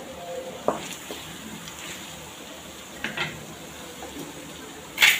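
A spoon stirring grated raw mango and coconut in a metal kadai, knocking against the pan three times, the loudest near the end, over a faint sizzle of the sauté.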